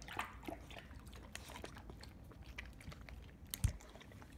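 Puppy lapping water from a ceramic bowl: a run of small wet clicks and slurps, with one louder knock about three and a half seconds in.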